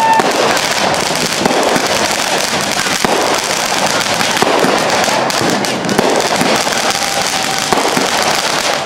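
Aerial fireworks bursting overhead: a continuous dense crackle of falling sparks, broken by a few sharper bangs.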